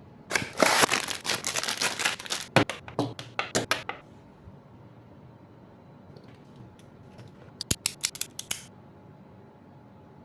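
Packaging for a Beyblade set being cut or torn open: a run of rapid, scratchy strokes for about four seconds, then a short burst of sharp clicks and rustles near the end.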